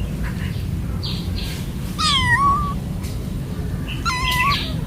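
Young kittens meowing: two thin, high-pitched cries, one about two seconds in that drops and then levels off, and a shorter wavering one about four seconds in, over a steady low hum. These are the distress cries of very young kittens away from their mother cat.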